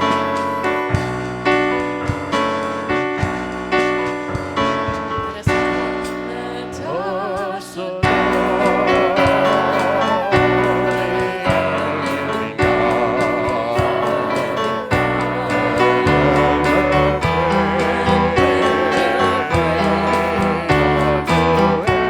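Worship music: keyboard chords at first, then singing comes in about seven seconds in, with fuller accompaniment joining a second later.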